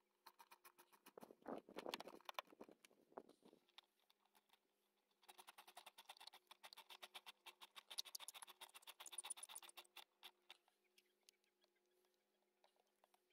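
Hand ratchet wrench clicking in two quick runs of ticks, about three seconds and then about five seconds long, as fasteners on the engine's air intake are turned.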